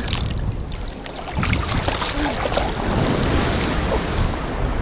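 Ocean surf and water sloshing and washing right against the microphone, with a steady rumble, as small waves break around a swimmer on a bodyboard.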